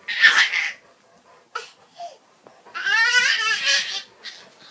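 Laughter: a short breathy laugh at the start, then a longer, high-pitched squealing laugh about three seconds in.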